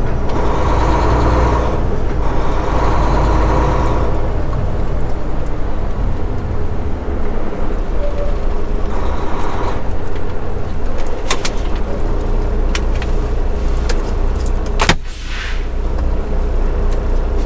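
Semi truck's diesel engine running as the truck creeps along at low speed, heard from inside the cab. Near the end come a few sharp clicks, the loudest followed by a brief dip in the engine sound.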